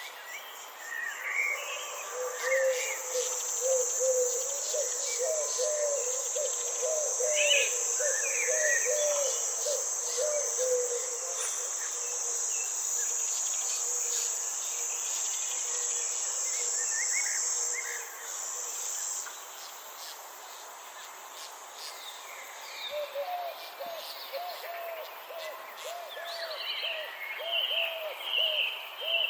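Garden ambience: a steady high-pitched insect buzz that stops about two-thirds of the way through, with scattered bird chirps and two stretches of a quick, repeated low call.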